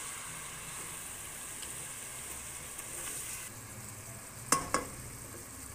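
Chicken pieces, tomatoes and onions frying in oil in a pan, sizzling steadily as ground spices are stirred in. Two sharp knocks near the end, the stirring utensil striking the pan.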